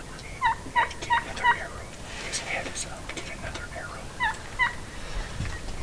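Turkey calling: a quick run of four short notes, each dropping in pitch, then two more a few seconds later.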